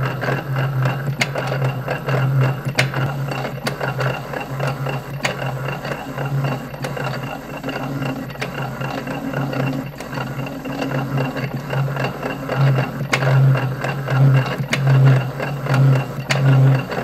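Metal lathe running under cut, its tool turning a 1144 steel bar and shedding chips: a low hum that swells and fades, with sharp ticks every second or two. The lathe has a broken part, and the maker says its sound got worse as it deteriorated.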